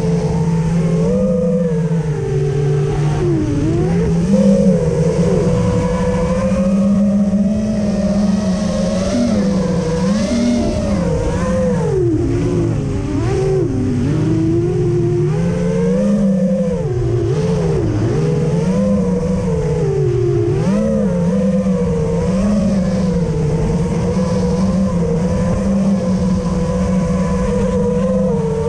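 Electric motors and propellers of an FPV racing quadcopter whining, their pitch rising and falling constantly as the throttle is worked through turns and dives.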